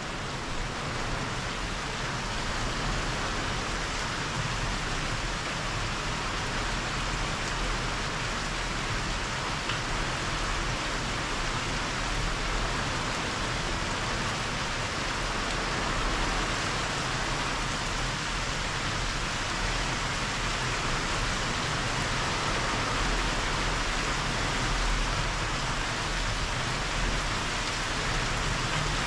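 Heavy hurricane rain falling steadily, an even, unbroken hiss of rain on grass, roofs and yard objects.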